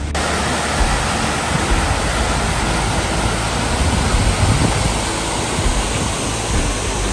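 Water rushing over a low dam spillway on a spring-fed trout stream: a loud, even rush that starts abruptly and holds steady.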